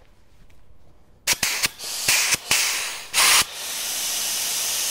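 Pneumatic adhesive gun hissing with compressed air: a few short puffs and bursts of air, then a steady hiss as the gun runs and lays a bead of adhesive onto scrap.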